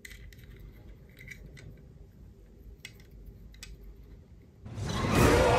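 Faint clicks and taps of a die-cast toy car being handled, a few scattered through the quiet. About a second before the end, loud music with voices starts suddenly.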